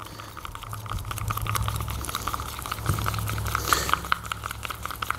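Hoof glue being stirred with a stick in a small cup: a quick, busy run of scraping and clicking against the cup's sides and bottom, over a steady low hum.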